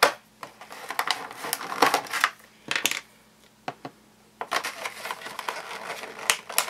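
Small plastic Play-Doh playset pieces clicking and clattering as they are handled, in quick irregular clicks with a short lull about three seconds in.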